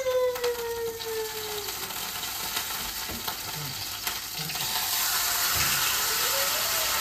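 Marinated steak sizzling in a hot frying pan, a steady hiss that gets louder about halfway through. A drawn-out voice, falling in pitch, carries over the first second or two.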